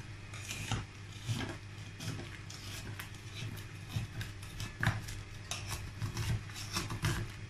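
A knife scraping and clicking against the inside wall of a metal tube cake tin in short, irregular strokes, worked around the edge to loosen a baked honey cake from the tin.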